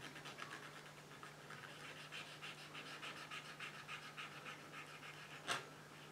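Cotton bud dampened with saliva being rubbed quickly back and forth on the surface of an old oil painting, a faint scrubbing of about five strokes a second, as a spot-cleaning test. A single light tap comes near the end.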